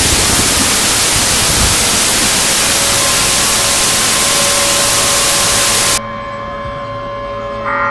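Loud hiss of broadcast static. Faint steady tones show through it from about halfway, and it cuts off abruptly about six seconds in, leaving a quieter hum with steady tones.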